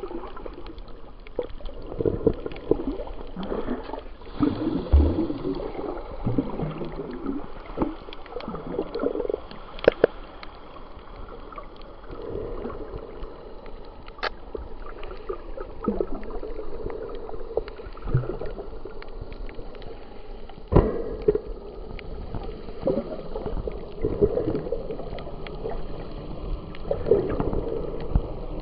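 Underwater sound picked up by a submerged camera while snorkeling: muffled, irregular sloshing and gurgling of water, with a few sharp clicks.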